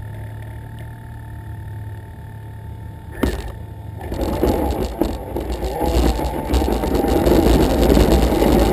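Traxxas Summit RC truck driving and pushing snow with its plow, heard as a low hum that turns into a louder, rough, uneven rumble from about four seconds in. There is a sharp knock about three seconds in.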